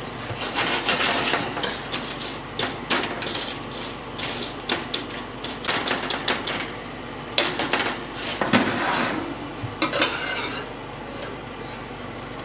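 Slotted metal spatula scraping and clinking on a sheet pan as roasting pumpkin seeds are stirred and flipped, in a string of irregular strokes.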